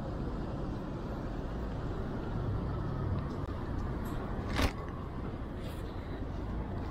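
Steady low rumble of city street traffic on a wet street, with a vehicle's hum swelling briefly near the middle and a single sharp click about two-thirds of the way in.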